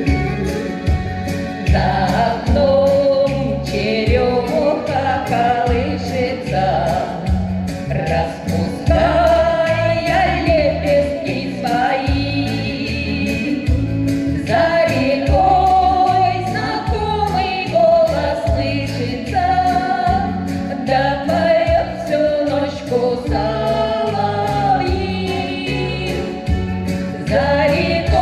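Two voices singing a song together over a backing track with a steady, pulsing beat.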